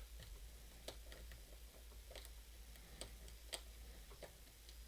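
Faint, irregular small clicks of a hook pick and tension wrench working the pins of a challenge lock, about five or six clicks spread over a few seconds.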